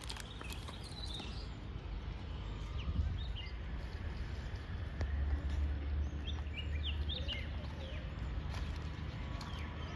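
Birds chirping in short, scattered calls over a low, steady outdoor rumble.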